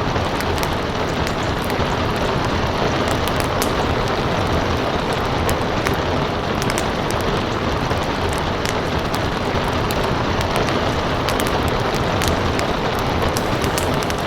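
Steady rain hiss mixed with a crackling wood fire, with sharp pops scattered irregularly over the continuous noise.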